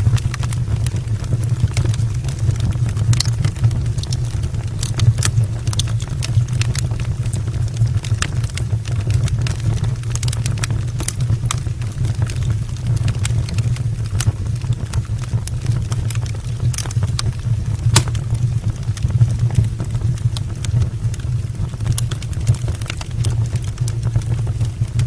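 Wood fire burning in an open fireplace: a steady low rumble with scattered sharp crackles and pops from the burning logs throughout.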